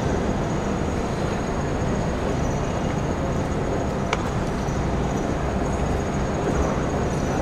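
Steady rumbling background noise of a large sports hall, with one faint click about four seconds in.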